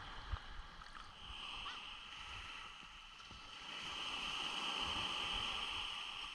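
Faint, muffled sea water sloshing around the camera, swelling about four seconds in and then fading.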